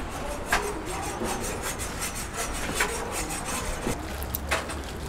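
Knife sawing and scraping against a wooden cutting board, with three sharper knocks: about half a second in, just before the middle, and near the end.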